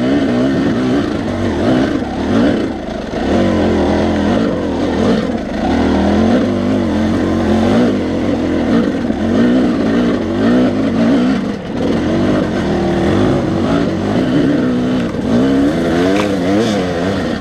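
Two-stroke Yamaha dirt bike engine heard close up from the bike, revving up and down continuously as it is ridden over a rough, rutted dirt trail.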